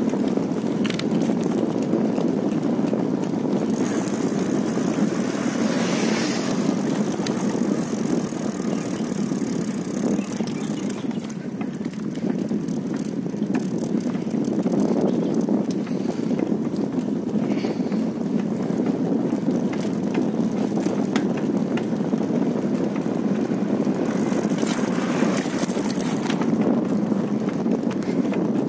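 Steady rushing wind and road noise from a bicycle riding along an asphalt road.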